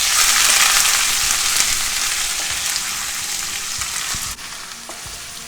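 Crushed ginger and garlic sizzling in hot coconut oil with cinnamon and bay leaves, a loud hiss that slowly fades and drops off sharply about four seconds in.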